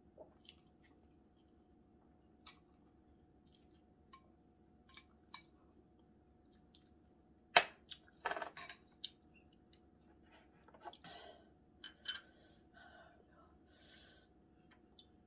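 Eating sounds at a table: soft chewing and small clicks, then a sharp clink of a utensil against a dish about halfway, followed by clatter of dishes and cutlery. Near the end, soju is poured from a glass bottle into a shot glass.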